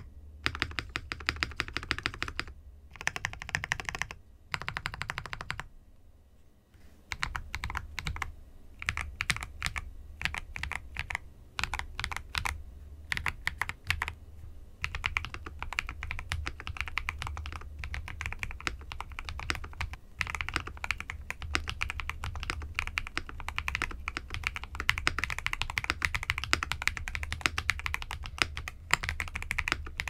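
Typing on a mechanical keyboard fitted with lubed Holy Panda V1 tactile switches: a run of soft key clacks, in short bursts with pauses for the first several seconds, then steady continuous typing.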